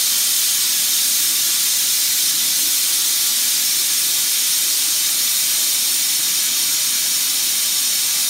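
Gas torch flame hissing steadily while heating a piece of small steel stock for forging.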